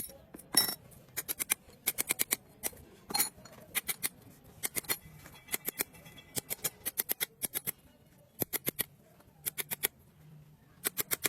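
Repeated sharp metallic clinks, like light hammer taps on steel, coming in quick groups of two to four strikes with short pauses between.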